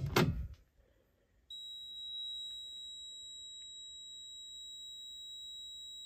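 A fire alarm pull station's handle is yanked down with a brief clack. About a second and a half later the Fire-Lite MS-5024 fire alarm panel's built-in sounder starts a steady, high-pitched continuous tone. This is the panel's pre-signal warning: it sounds for 15 seconds before the horns and strobes are set off.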